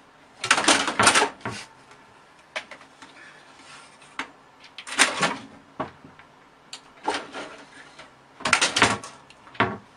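Irregular light knocks, clicks and rustles, the loudest clusters near the start, about halfway and near the end: a cat pawing and clawing at the front of a plastic computer tower.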